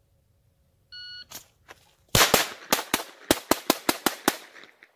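A shot timer beeps once, and about a second later a Glock 44 .22 LR pistol fires a quick string of about ten shots over roughly two seconds.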